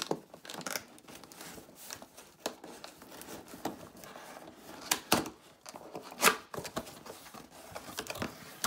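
A cardboard laptop box being opened with a knife: packing tape cut and torn and the cardboard and packaging rustling, in a string of short scrapes and rips, the loudest about six seconds in.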